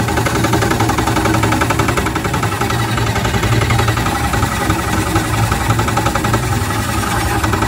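Homemade outboard boat motor running steadily: a constant low hum with a fast, even ticking over it.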